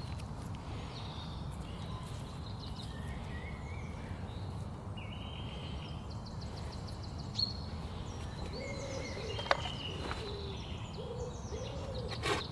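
Woodland background: a low steady rumble with small birds chirping and trilling on and off, and two faint knocks in the middle. Right at the end a hand saw starts cutting into a wooden pole with regular strokes.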